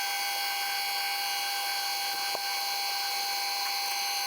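Machine tool motor running with a steady high-pitched whine, with a single light click a little over two seconds in.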